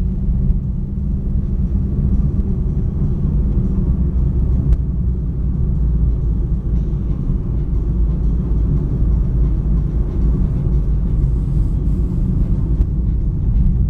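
Steady low rumble of engine and tyre noise inside the cabin of a car driving along a city road.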